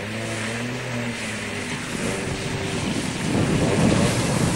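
A 4WD's engine running as it drives through a muddy, water-filled track toward the listener, with mud and water splashing from the tyres. The splashing grows louder from about three seconds in as the vehicle gets close.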